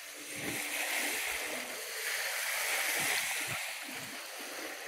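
Lake water lapping and splashing at the shoreline, a steady hiss with uneven low rumbles.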